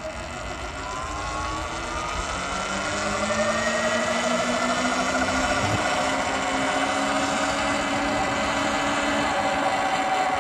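Sur-Ron electric dirt bike's motor and drivetrain whining, rising in pitch as the bike speeds up over the first few seconds, then holding steady at cruising speed over a rushing noise.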